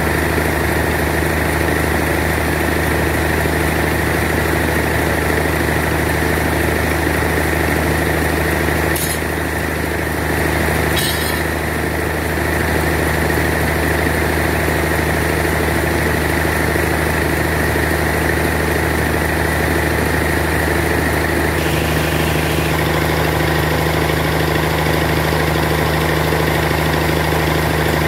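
Band sawmill's engine running steadily at idle, the saw not cutting. Two brief knocks stand out about nine and eleven seconds in.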